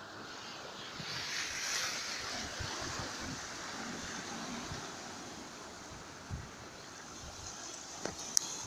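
Sea waves washing on the shore, with a swell of surf about a second in. A single sharp click near the end.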